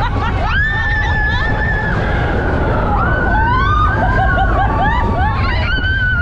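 Riders screaming and whooping on a mine-train roller coaster, several voices overlapping in long held rising and falling cries, over the loud, steady rumble and wind noise of the moving train.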